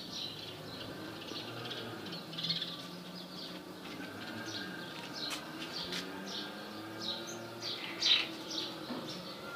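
Small birds chirping over and over in short, quick calls, with a louder chirp about eight seconds in.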